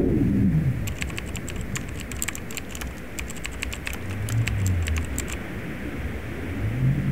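Rapid typing on a computer keyboard: a quick run of key clicks lasting about four and a half seconds, starting about a second in. A low drone runs underneath.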